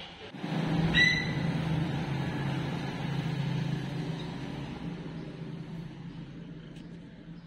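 A cat purring close to the microphone, a steady low sound that starts suddenly and fades slowly. A brief high-pitched chirp comes about a second in.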